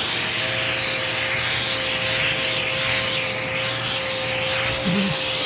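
Dirt Devil Power Max vacuum cleaner running with a steady whine, its crevice tool rubbing and scraping over couch upholstery as it sucks up dirt and hair.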